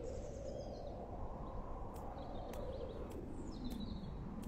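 Faint outdoor background noise with a few soft bird chirps.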